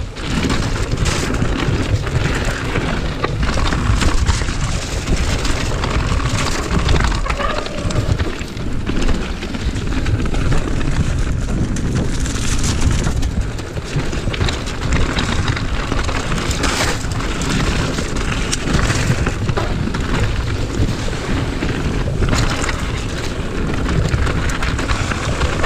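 Mountain bike ridden fast down a rough gravel forest singletrack, heard from a chest-mounted GoPro: wind buffeting the microphone and tyres rumbling over the trail, with frequent knocks and rattles from the bike over roots and stones.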